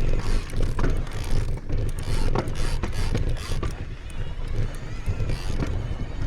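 Wind buffeting the microphone with a steady low rumble while a mountain bike is pushed uphill over rocky ground, with scattered clicks and scuffs from the bike and footsteps.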